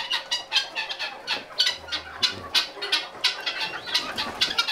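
Mixed flock of chickens and guinea fowl clucking and calling over one another: a dense run of short, sharp, high calls, several a second.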